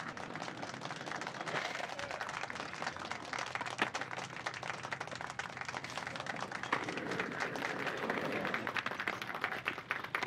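A crowd clapping and applauding steadily, many claps blending into a dense patter that grows a little thicker in the second half.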